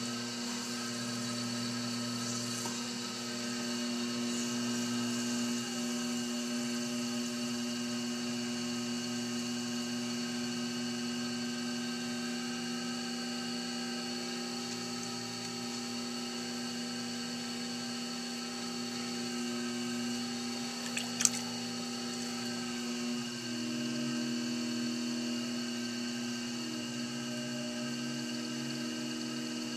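Electric potter's wheel motor whirring steadily while a cup is thrown on it. About 23 seconds in, the whine shifts slightly lower as the wheel's speed changes. A single sharp click comes just before that.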